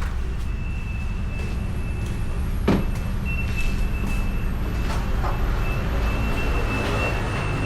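Honda Beat single-cylinder automatic scooter on the move, its engine and road rumble picked up by a bike-mounted action camera, with a thin high whine that comes and goes. A single sharp knock comes about two and a half seconds in.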